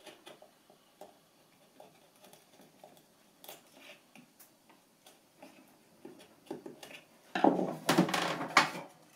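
Marples bevel-edge chisel paring wood by hand, with faint scraping ticks as it cleans out a joint slot. About seven seconds in comes a louder clatter of knocks as the chisel is put down on the wooden bench and the workpiece is handled.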